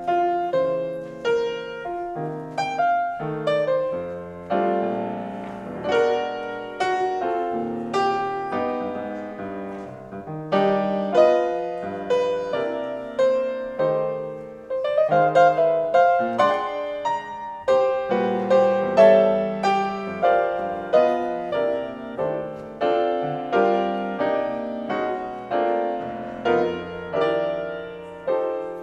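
Solo grand piano playing: melody notes and chords struck at an unhurried pace, each left to ring and fade.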